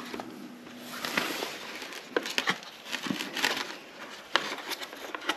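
Rustling and a scatter of short, light clicks and taps from hands working wiring and plastic parts around a motorcycle's battery compartment.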